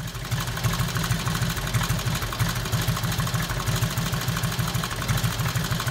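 Motorcycle engine idling steadily with a fast, even beat.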